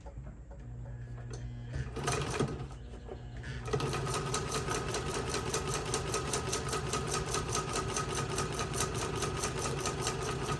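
Singer vibrating shuttle sewing machine sewing its first test stitches after being torn down, cleaned and re-greased: a few knocks at first, then, from about four seconds in, a steady, fast, even clatter of needle strokes. It runs a bit laggy, which is put down to the presser foot tension, maybe too little.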